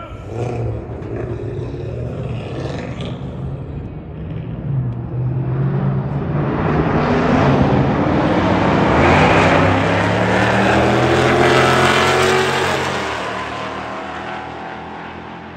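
Cars racing under hard acceleration, the engine note climbing in pitch and growing louder as they approach, loudest about nine to twelve seconds in, then fading away as they pass.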